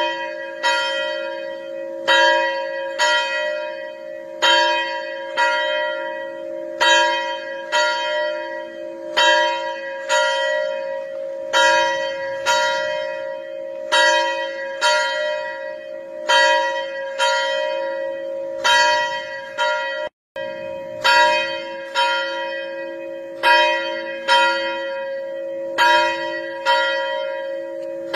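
A single church bell being rung steadily, struck about every three-quarters of a second, each stroke ringing on into the next. The sound drops out for a split second about twenty seconds in.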